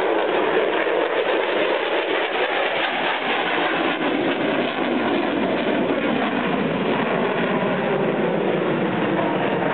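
Jet noise from an F-16 fighter flying past and pulling up into a steep climb, a steady, even noise with no distinct tone.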